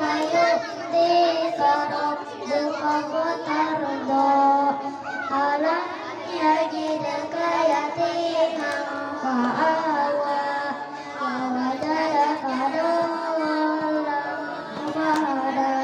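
A young boy singing solo into a microphone: a single voice carrying a slow, chant-like melody of long held notes that bend and waver.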